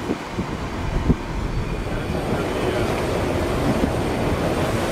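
Steady low rumble and rush of a ship underway at sea, with wind and water noise on the open deck. There is a single short knock about a second in.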